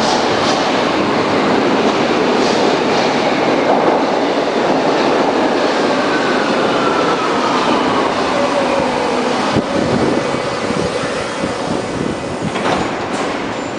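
Berlin U-Bahn class H train running on the track, a loud steady rumble with a whine that falls in pitch from about five to nine seconds in.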